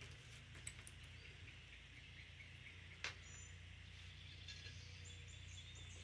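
Near silence: garage room tone with a steady low hum, a single sharp click about three seconds in, and a few faint high chirps.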